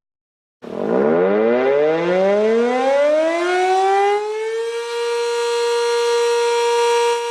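Civil defense siren winding up after a brief silence: its pitch rises steadily for about four seconds, settles on a steady tone, then cuts off abruptly.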